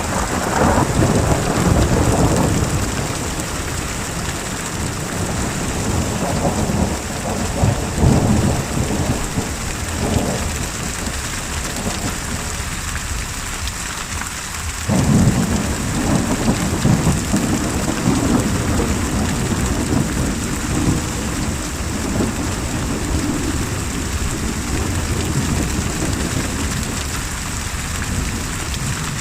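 Steady heavy rain with rolling thunder: a rumble right at the start, more rumbles in the first third, and a sudden crack of thunder about halfway through that rolls on for about ten seconds.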